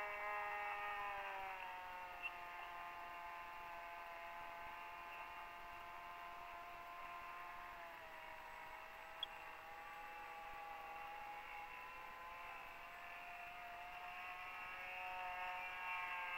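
Electric motor and propeller of a 1.2 m radio-controlled P-51 Mustang model in flight: a faint whine whose pitch drops about a second and a half in and again around eight seconds, then rises and grows louder near the end.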